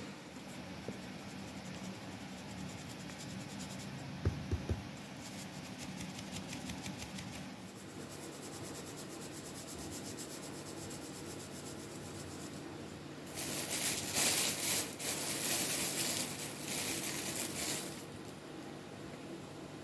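Flour being sifted by shaking a round metal sieve over a plastic bowl: a soft scratchy rasping, with a few light knocks of the sieve about four seconds in. From about thirteen to eighteen seconds a louder crinkling rustle of a plastic bag of flour being handled as more flour is scooped out.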